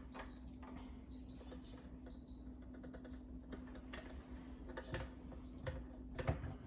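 Light clicks and knocks of plastic dishwasher parts being handled and fitted as the spray arm goes back on, sharpest about five and six seconds in. Under them runs a faint steady hum, and three short faint high tones sound about a second apart near the start.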